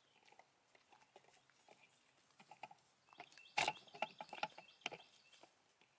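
White-tailed deer crunching corn and shuffling through dry leaf litter: a scatter of small crackling clicks, busier in the second half, with one sharper crack a little past halfway.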